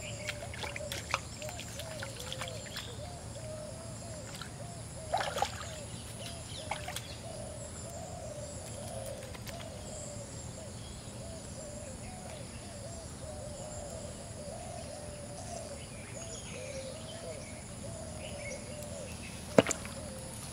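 A bird calling over and over in wavering, cooing phrases, over steady outdoor background noise. A few soft knocks come in the first half, and one sharp knock near the end is the loudest sound.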